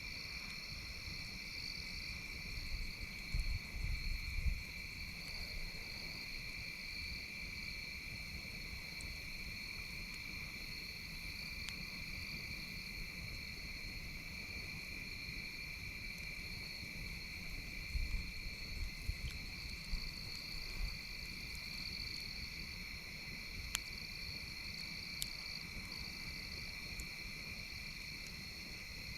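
Steady outdoor insect chorus of crickets, trilling continuously at two high pitches, with a few sharp pops from a crackling campfire and two short spells of low rumbling.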